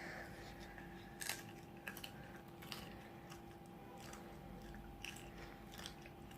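Close-up chewing and biting of crunchy fried food, with scattered sharp crackles of the crispy coating or chips breaking, over a faint steady hum.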